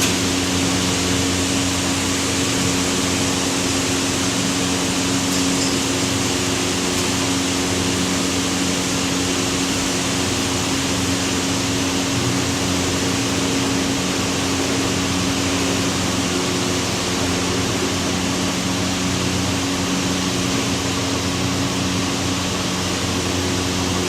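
Table saw running steadily, an even motor hum and blade whir with no change in pitch or load.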